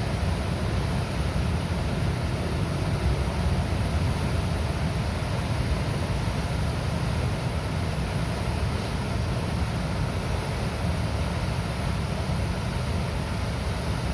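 Water released from a river dam rushing and churning through the gates, a steady, unbroken wash of water noise with a deep low rumble underneath.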